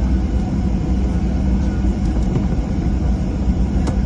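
Steady low rumble inside a passenger airplane's cabin as it rolls onto the runway for takeoff.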